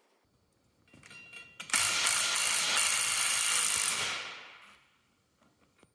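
A power tool runs steadily for about two seconds, driving a Posi Lock puller that is pulling a bearing off a Case 310G bulldozer's final drive shaft. A few mechanical clicks come first, and the tool's sound fades away at the end.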